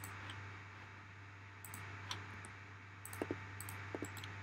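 Computer mouse clicks: two pairs of short, sharp clicks, about three seconds in and again about a second later, with a few fainter ticks. A steady low hum runs underneath.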